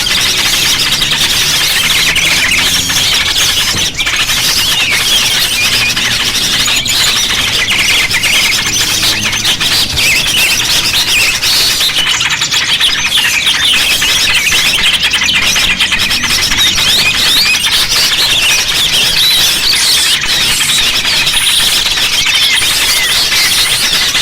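Dense chorus of many small birds chirping and twittering at once, a continuous busy clamour of short high notes. It is a bird-lure (pikat) recording of noisy small birds, played to draw small birds in.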